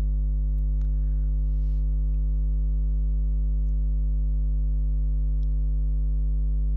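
Steady electrical mains hum with a stack of overtones, unchanging in level throughout.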